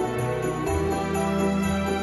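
Background Christmas-style music with jingle bells and a light, steady beat.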